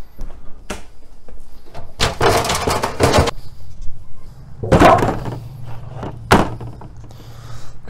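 A metal baking sheet being handled: a scraping rattle lasting about a second, starting two seconds in, then two loud knocks about a second and a half apart.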